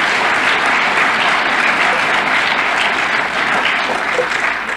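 Audience applauding steadily, the clapping beginning to die away near the end.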